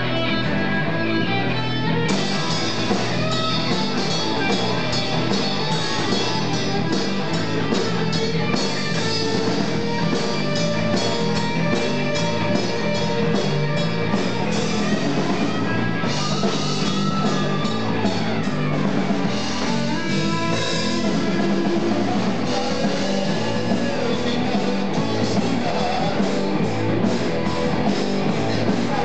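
Live rock band jamming: electric guitars played over a drum kit.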